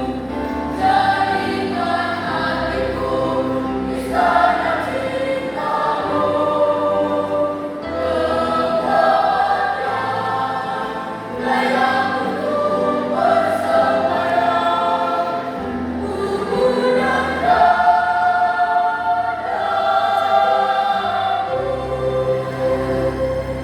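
Junior high school choir singing in parts, with long held notes and chords that change every second or two.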